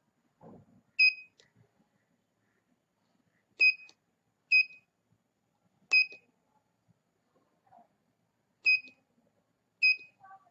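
Six short beeps at one pitch from the 5V buzzer of an Arduino alarm clock, one for each key pressed on its 4x4 membrane keypad while the alarm minute is entered.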